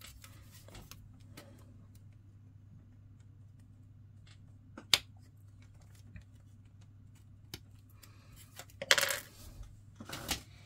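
Plastic parts being snipped off a miniature kit's sprue with side cutters. There is one sharp click about five seconds in, with fainter clicks around it. Near the end comes a short rattle of small plastic pieces being handled and set down.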